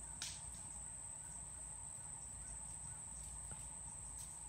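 Steady high-pitched insect trill, with two short clicks, one just after the start and one near the end.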